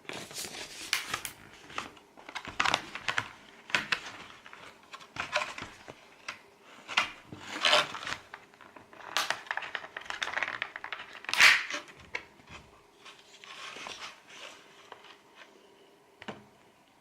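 Packaging being handled during unboxing: irregular crinkling and rustling with occasional light knocks, in uneven bursts that thin out near the end.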